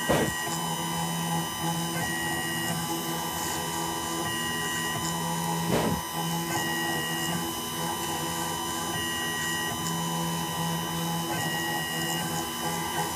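Small CNC milling machine running as its spindle mills the bare chip area of an iPhone logic board: a steady mechanical hum made of several level tones. The tones shift in a repeating cycle about every two seconds as the machine moves, with a brief knock about six seconds in.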